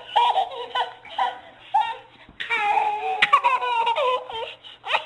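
Baby laughing: short bursts of giggles at first, then a longer run of laughter from about halfway.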